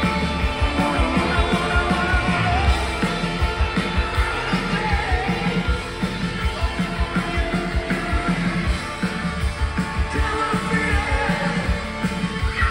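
Live rock band playing a song with vocals over a steady driving drum beat.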